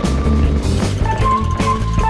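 Background music with a bass line and a melody of held notes.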